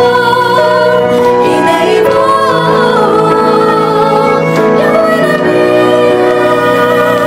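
Three women singing a song together, holding long notes and gliding between them.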